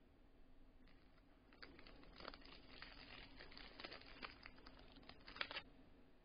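Packaging crinkling and tearing as a small cardboard box is opened by hand. The faint crackles and clicks start about a second and a half in, last about four seconds, then stop.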